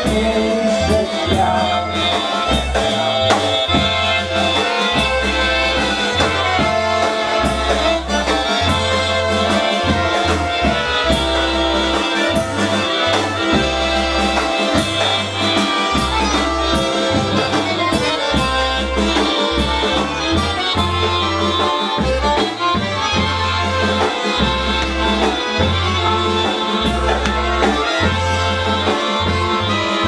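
Live Polish-style band playing a waltz, with accordion leading over a bass line and drums keeping a steady beat.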